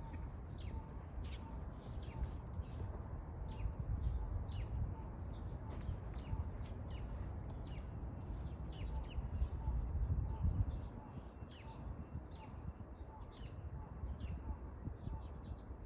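Small birds chirping, many short high calls scattered throughout, over a low rumble.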